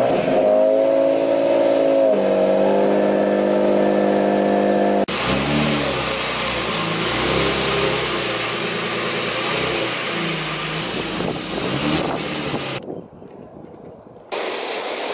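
Nissan 350Z's 3.5-litre V6 just started, running at a fast idle through an aftermarket exhaust with a burnt-titanium tip, the idle stepping down in pitch about two seconds in. About five seconds in the engine is heard from another spot, running lower with its pitch rising and falling a little for several seconds.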